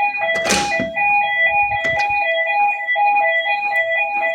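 Building fire alarm sounding a two-tone high-low warble, switching back and forth between two pitches a few times a second. A short burst of hiss cuts in about half a second in.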